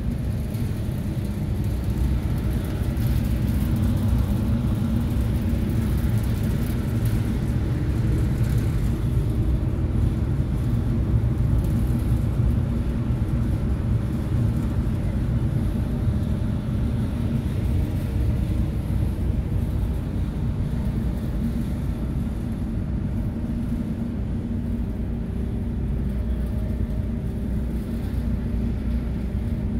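Steady low drone of a car ferry's engines while under way, heard from the open car deck, with a few steady hum tones in it.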